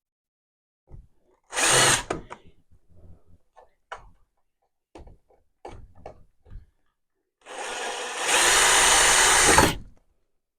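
Power drill running: a short burst about two seconds in, a few knocks and clicks, then a longer run near the end that gets louder partway through before stopping.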